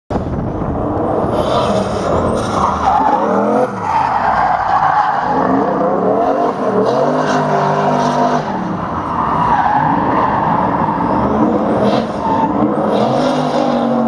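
Ford Mustang drift car's engine revving hard, its pitch rising and falling over and over, with the rear tyres spinning and squealing as it slides sideways through a drift.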